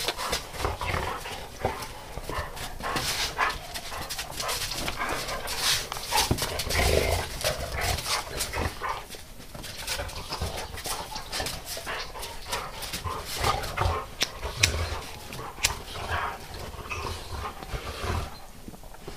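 Two dogs playing together in snow, with dog vocalisations and scuffling throughout.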